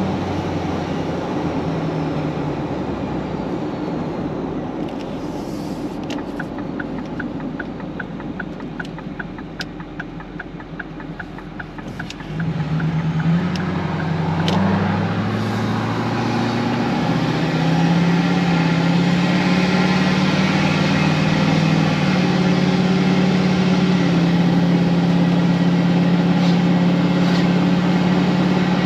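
Car engine and road noise: the car slows and the noise fades, with a fast regular ticking for several seconds. About twelve seconds in, the engine accelerates with a rising note, then settles into steady cruising.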